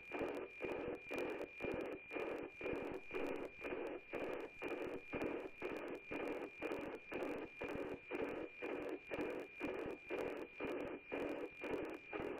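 NOAA-18 weather satellite's APT image signal received on an FM radio receiver: a steady high whistle with a tick-tock beat about twice a second, one beat for each scanned image line.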